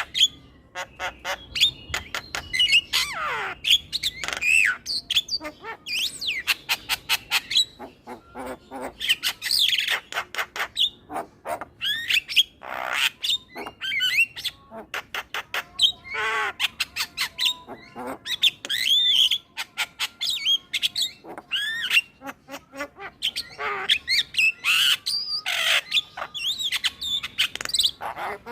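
Male Javan myna chattering: a fast, varied run of harsh squawks, rapid clicks and whistled notes that glide up and down, with hardly a pause.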